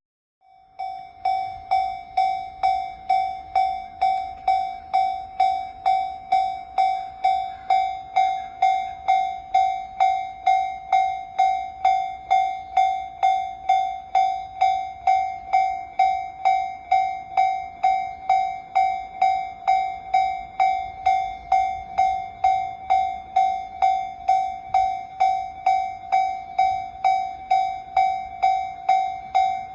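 Japanese level-crossing warning bell, an electronic Tōjō-type tone, starting about half a second in and then ringing in even, repeated strikes just under two a second: the crossing has activated for an approaching train.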